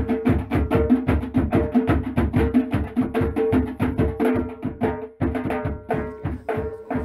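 Music with rapid percussion, many quick strikes a second, over a held low note.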